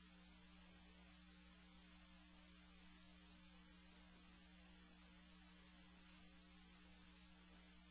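Near silence: only a faint, steady electrical hum with a little hiss.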